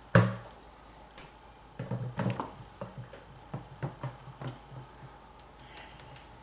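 Handling noise from a plastic racking cane and vinyl tubing: a sharp knock right at the start, then scattered light clicks and taps.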